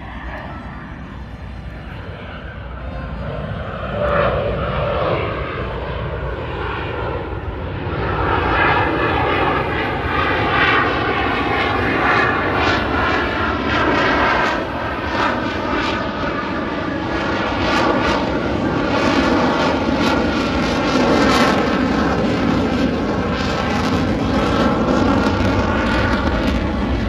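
A propeller airplane's engine running in a steady drone, getting louder about four seconds in and again about eight seconds in, then holding loud.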